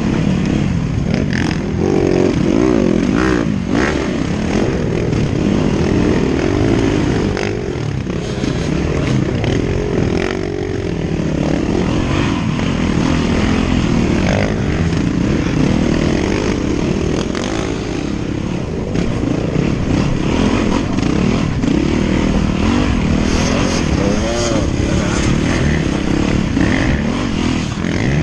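Dirt bike engine revving up and down without pause as it climbs a rocky trail, heard from the rider's helmet, with scattered knocks.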